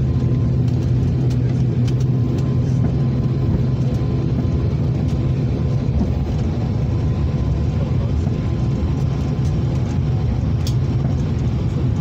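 Pratt & Whitney turboprop engines running, a steady low drone heard from inside the passenger cabin.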